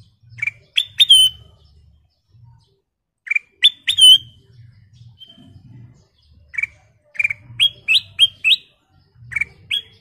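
Caged ruby-throated bulbul (kutilang emas) calling in short, sharp, rising chirps, in bursts of two or three notes, with a quicker run of about six notes near the end.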